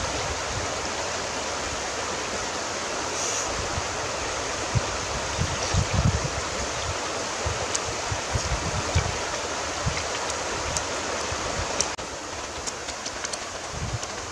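Shallow river rushing steadily over rocks, with low gusts of wind buffeting the microphone and a few light clinks of a metal spoon on the bowl. The water noise drops a little about twelve seconds in.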